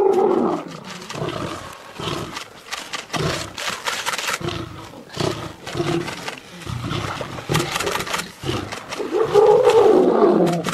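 Lions roaring and snarling, loudest right at the start and again near the end, with many short, sharp noisy sounds in between.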